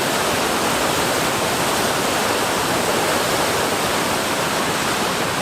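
Waterfall on a river in high water, pouring steadily: a loud, even rushing of water with no change.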